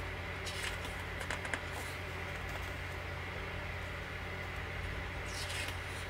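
Pages of a large hardcover photobook being handled and turned: light paper rustles and ticks about a second in, then a longer paper swish as a page is turned near the end, over a steady low hum.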